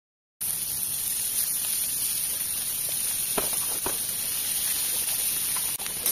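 Steady hissing sizzle of frying food, with two faint short clicks a little past the middle.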